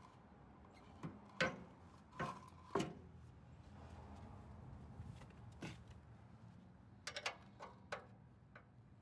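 A combination wrench clicking against the 9/16-inch hex bolts that join the front and back frame sections of an Ariens snowblower, as the wrench is fitted and turned. There are scattered light clicks, a few in the first three seconds and a quick cluster about seven seconds in.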